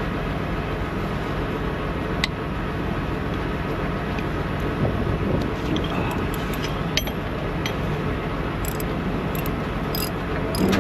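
Steady low hum of an idling engine, with a sharp click about two seconds in and scattered light clicks in the second half.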